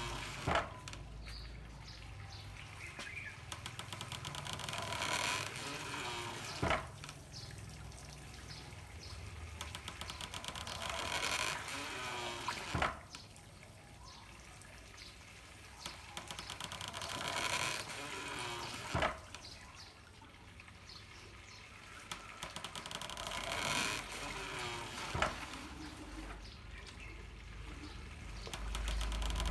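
Handmade water-powered corn mill at work: water runs and trickles through bamboo pipes, and the mill knocks in a steady beat about every six seconds, five knocks in all.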